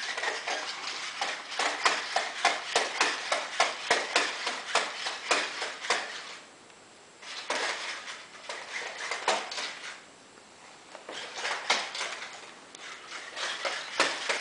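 Sony Aibo ERS-210 robot dog walking: its leg servos whirring and its plastic feet clicking rapidly on the floor, in three bouts broken by short pauses about six and ten seconds in.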